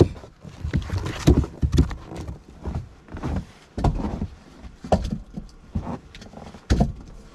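Split firewood pieces knocking and clunking against each other and the wooden box as they are set in, about eight irregular knocks.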